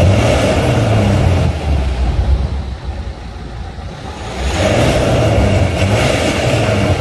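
BMW 320d xDrive E90's 2-litre four-cylinder turbo diesel being revved through a Supersport stainless-steel sport exhaust: held at raised revs, falling back for about two seconds near the middle, then revved up again.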